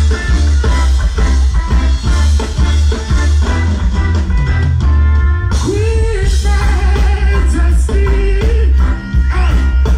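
A live reggae band playing loud through a PA, with a heavy bass line and a steady drum beat. A voice sings over it from about halfway.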